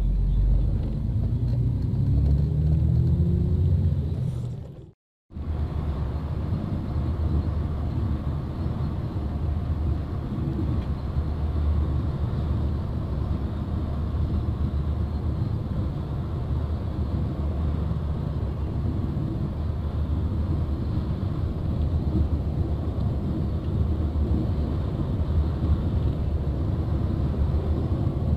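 Vehicle engine and road rumble heard from inside while driving on a highway. The engine pitch rises as it accelerates over the first few seconds; the sound cuts out abruptly for a moment about five seconds in, then a steady drone of engine and tyres carries on.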